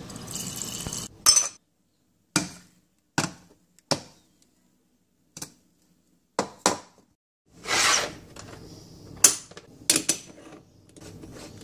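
Aluminium stovetop moka pot being filled and assembled. A brief rush of tap water comes at the start, then a string of sharp metal clinks and knocks as the parts are handled and set down, with a short rushing sound in the middle and faint scraping near the end as the top is screwed on.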